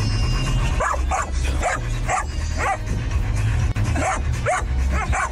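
Young golden retriever yipping and whining in short high calls, about two a second.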